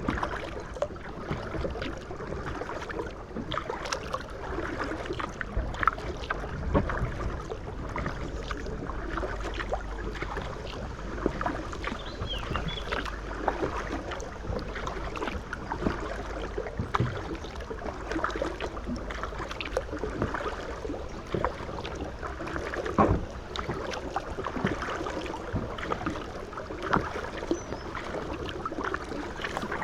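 Kayak paddling on lake water: the paddle dips and splashes, with drips and scattered light knocks against the hull.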